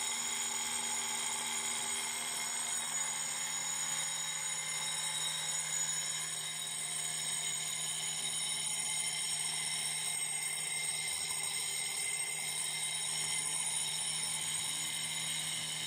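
Electric fire alarm bell ringing continuously with a steady, unchanging pitch, set off by a smoke detector that has been triggered with test smoke spray.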